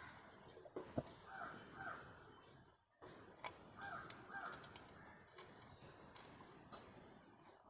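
Faint crow cawing: two short caws about a second and a half in and two more around four seconds in, with a few light clicks of small parts being handled.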